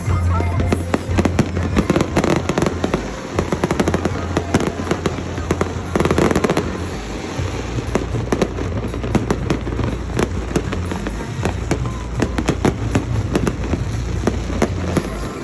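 Fireworks going off in rapid succession: many sharp bangs and crackles throughout, with a denser, louder burst about six seconds in.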